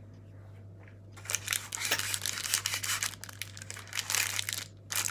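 Plastic packaging crinkling and rustling as it is handled, a rapid run of crackles starting about a second in, as the girls set about cutting the packet open.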